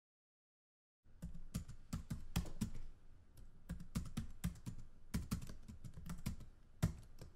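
Manual typewriter typing: an irregular run of key strikes clacking against the paper. It starts about a second in and cuts off abruptly near the end.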